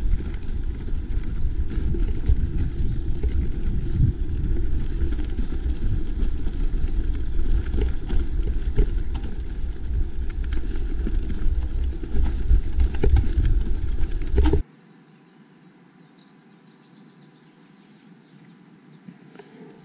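Wind buffeting and rumbling on the microphone of a mountain bike rider's camera, with frequent knocks and rattles from the rough track. About fifteen seconds in it cuts off suddenly to a much quieter stretch with only faint ticks.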